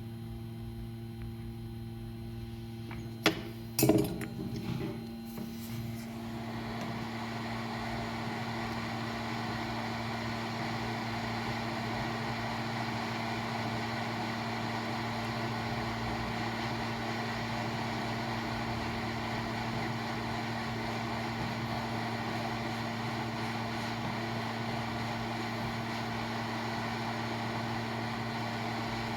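Two sharp clicks, then a steady rushing blower noise starts about six seconds in and holds, over a constant electrical hum.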